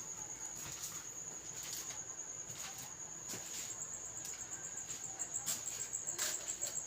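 A steady high-pitched insect trill that breaks into rapid, even pulses near the end, with a few faint clicks and rustles.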